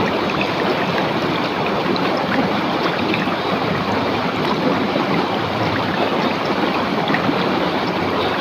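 River water rushing steadily over rocks, with many small splashes.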